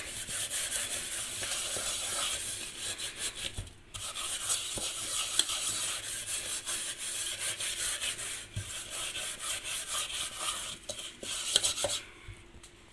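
Steel-wool scourer scrubbing the inside of a metal pot coated in a foamy cleaning paste: a continuous rapid scratching rasp of wire on metal. It breaks off briefly about four seconds in and stops near the end.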